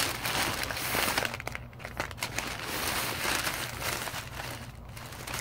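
Plastic packaging crinkling and rustling as a white poly mailer and clear plastic bags of clothing are handled. The crinkling runs on with two brief lulls.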